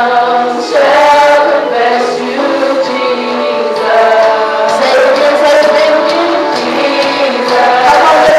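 A group of voices singing a praise-and-worship song together, with sustained notes throughout.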